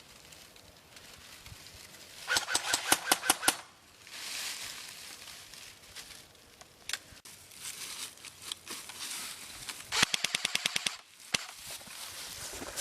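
Airsoft guns firing in two rapid full-auto bursts of sharp clicking shots: one about two seconds in, and a faster one near the end, with rustling between.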